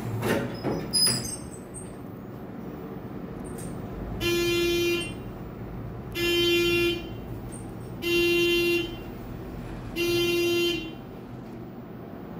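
Elevator buzzer sounding four times, each blast a little under a second long at one steady pitch, about two seconds apart. A few clicks and rattles come in the first second or so.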